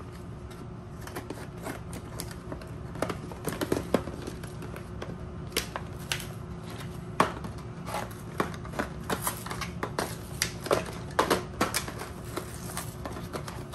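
Scissors cutting through a plastic blister pack, giving irregular sharp snips and crackles of the stiff plastic. The snips come more often in the second half.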